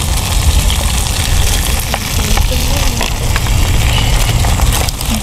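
Battered banana fritters deep-frying in boiling oil: a steady sizzle with many fine crackles, over a low rumble.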